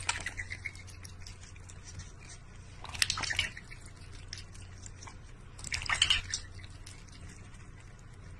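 A domestic duck dabbling its bill in a metal bowl of water, making small wet splashes and drips, with louder splashing flurries about three seconds in and again around six seconds.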